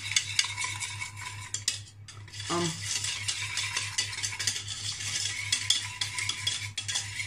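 Wire balloon whisk beating butter and caster sugar by hand in a stainless steel saucepan: rapid, continuous clicking and scraping of the metal wires against the pan. The beating briefly slackens about two seconds in.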